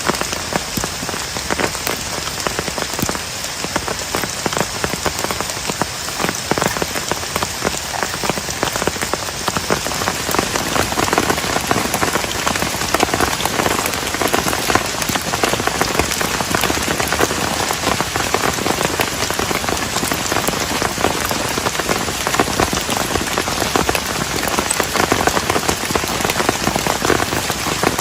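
Heavy rain: a dense, steady patter of drops striking a surface, growing a little louder about ten seconds in.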